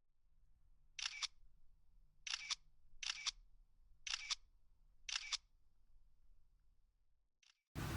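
Camera shutter clicking five times at irregular intervals of about a second, each one a quick double click, with a faint click near the end.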